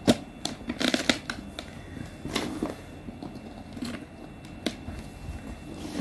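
Hands packing whole hot peppers, gherkins and garlic cloves tightly into a large plastic jar. Scattered crackles, knocks and rustles come from vegetables squeezing against each other and the jar's plastic walls.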